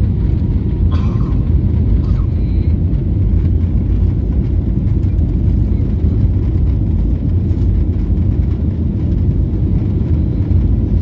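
Steady low rumble inside the cabin of a jet airliner taxiing on the ground, from its engines and rolling wheels, with no build-up of thrust.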